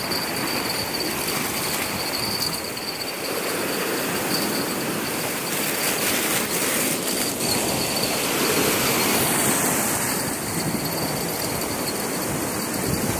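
Steady wind noise on the microphone with waves washing on the shore, and a thin, steady high-pitched tone running through it.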